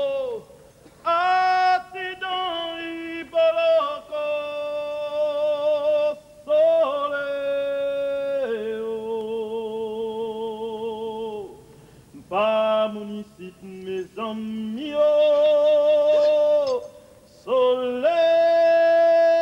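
A solo voice singing slow, long held notes, phrase after phrase with short breaths between them.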